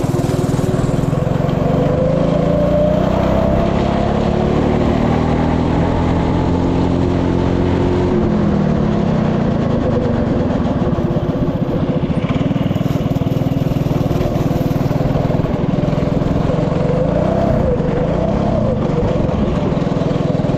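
196 cc single-cylinder go-kart engine running hard under load as the kart is driven. Its pitch climbs steadily for several seconds as it accelerates, drops sharply about eight seconds in, then rises and falls with the throttle.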